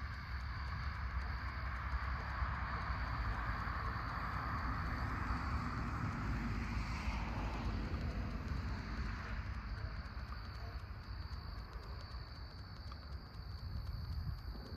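A vehicle passing by: a rushing sound that swells over several seconds, drops in pitch about halfway through, and fades away.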